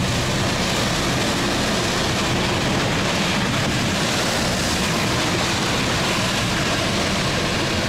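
Uragan Taiga 2000 motorized snow tow unit's engine running steadily under load as it drives through snow, with a steady rushing noise over the engine.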